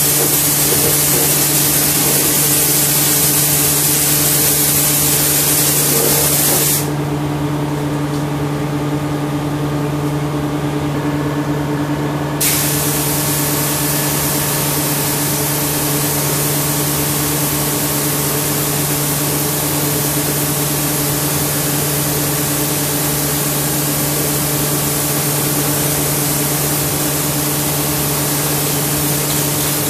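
Compressed-air spray guns hissing steadily as they mist a stone tile during chemical mirror-silvering. The hiss stops about seven seconds in and starts again about five seconds later, over a steady low hum.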